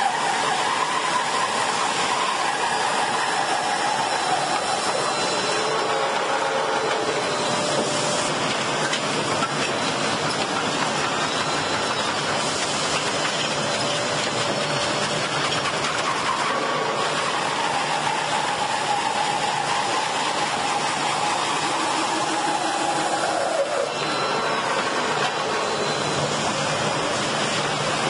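Loud, steady noise of running industrial machinery, with a whining tone that shifts in pitch now and then.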